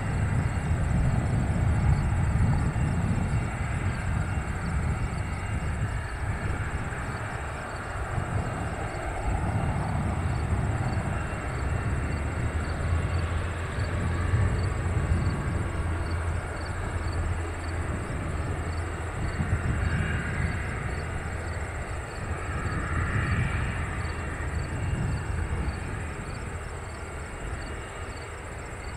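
Piper Seminole's twin piston engines at takeoff power, a steady drone through the takeoff roll and lift-off, growing slightly fainter near the end as the aircraft climbs away.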